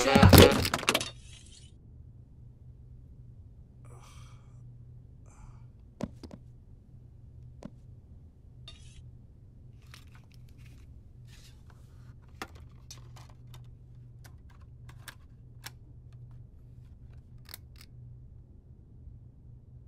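Music cuts off about a second in, leaving faint room tone: a steady low hum from refrigerated display coolers with scattered small clicks, scrapes and rustles.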